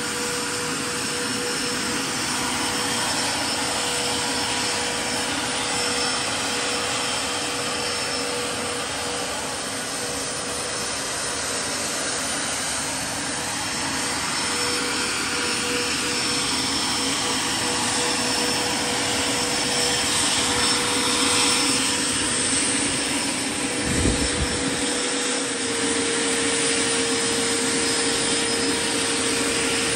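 MD 600N RC helicopter's model turbine engine and electric ducted fan running steadily: a jet-like rush with a steady whine whose pitch steps up slightly near the end. There is one low thump about 24 seconds in.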